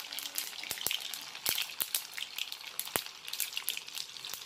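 Hot oil bubbling and sizzling in a wok on a gas stove, with frequent sharp, irregular crackling pops over a steady high hiss.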